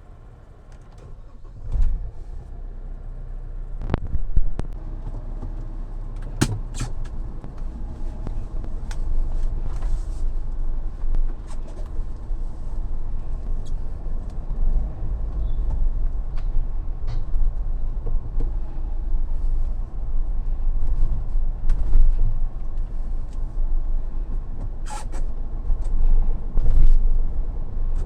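Mahindra Thar driving, heard from inside the cabin: a steady low engine and road rumble that comes up about two seconds in, with scattered sharp clicks and knocks.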